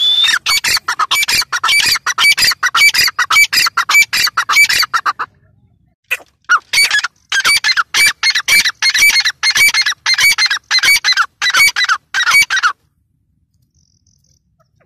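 Grey francolin (teetar) calling in a fast series of sharp, ringing notes, about five a second. It gives two runs, the first about five seconds long and the second about six and a half, with a short break between them.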